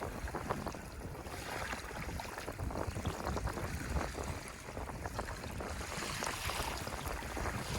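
Ocean surf washing ashore: a continuous rushing of waves with fine crackling fizz, swelling and easing slightly.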